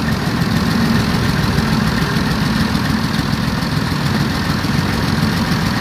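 An engine idling steadily with a low, even throb.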